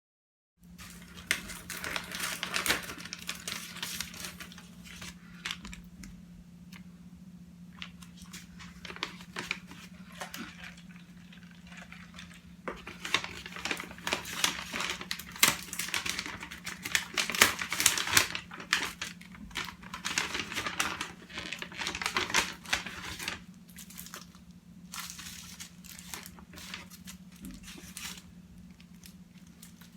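Food packaging being handled and opened: paper and plastic crinkling and rustling in irregular spells, with some tearing, over a steady low hum.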